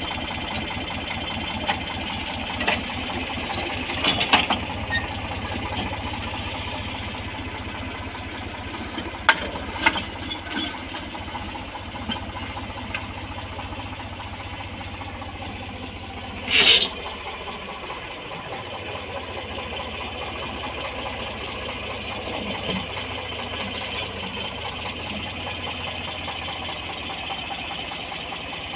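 Eicher tractor's diesel engine running steadily as it pulls a plough through soil, with a few short sharp knocks, the loudest about two-thirds of the way in.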